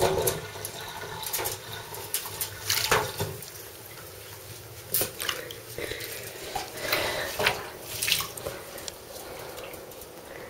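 Shallow bathwater in a tub splashing and sloshing in irregular bursts as a ferret moves about in it.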